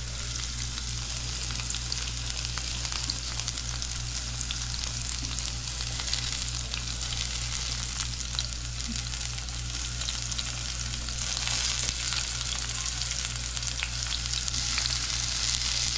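Tomato and onion frying in hot oil in a pan: a steady sizzle with small crackles, which gets louder about eleven seconds in and again near the end.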